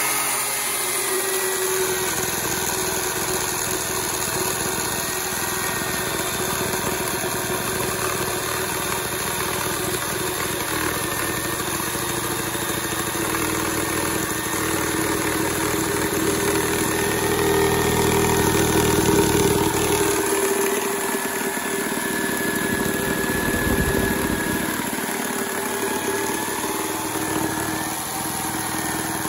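Erbauer ERS1100 reciprocating saw running steadily under load as its wood blade cuts through an old, tough timber railway sleeper.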